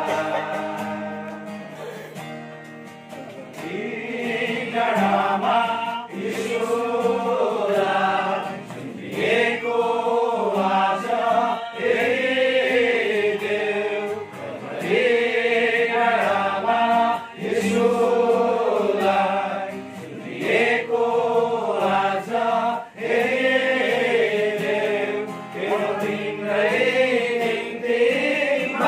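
Congregation of men and women singing a hymn together in slow phrases, with short breaks between them.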